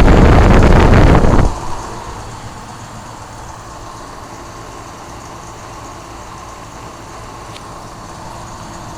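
A loud rushing noise for about the first second and a half, then the steady running of a 2005 Payne 5-ton heat pump's outdoor unit, its compressor and condenser fan working in cooling mode. The running is a quiet, even hum with a faint steady whine.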